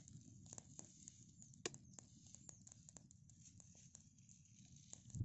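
Faint, irregular crackling of a small open fire of dry twigs and leaves roasting an ear of sweet corn, with one sharper pop about a second and a half in.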